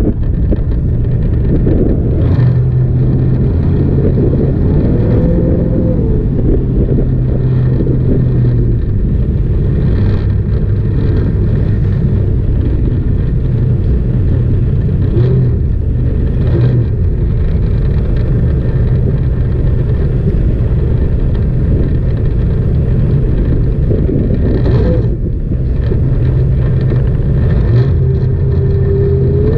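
Jet boat engine running hard and steadily, with rushing water and wind noise, its pitch shifting a little as the throttle changes.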